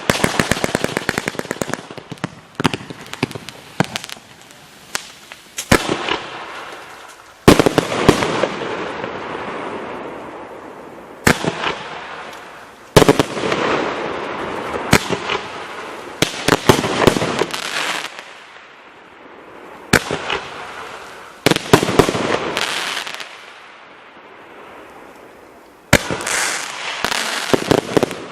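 A 60-shot consumer firework cake firing: sharp bangs come in quick clusters, and each cluster trails off over a few seconds before the next volley.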